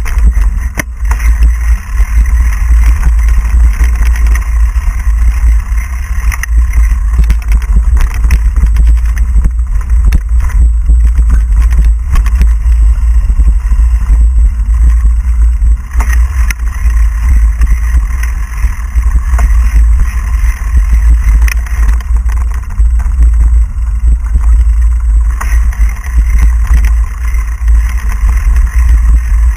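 Mountain bike ridden fast over hard-pack singletrack, heard through a handlebar-mounted GoPro Hero2: a loud, steady low rumble of wind and vibration on the microphone, with frequent rattles and knocks as the bike goes over bumps in the trail.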